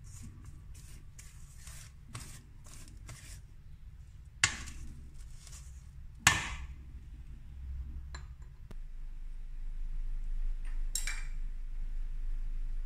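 Spatula scraping and folding thick cookie dough in a stainless steel mixing bowl, a run of short strokes. Then two sharp knocks of the spatula against the metal bowl, about two seconds apart.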